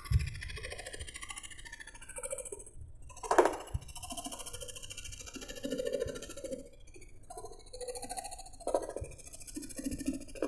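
Background music with light percussive beats.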